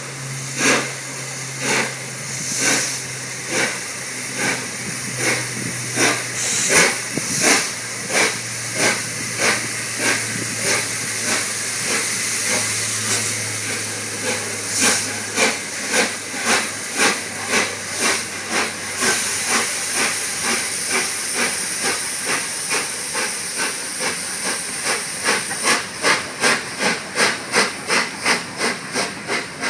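Peppercorn A1 Pacific steam locomotive 60163 Tornado pulling away with its train, its three-cylinder exhaust chuffing over a steady hiss of steam. The beats quicken from about one a second to nearly three a second as it gathers speed.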